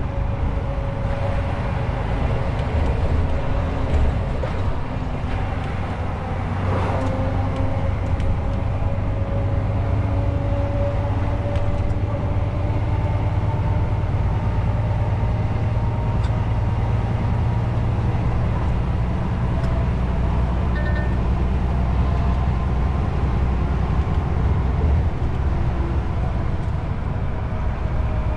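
Lorry's engine running steadily while driving, with road and tyre noise and a constant low hum.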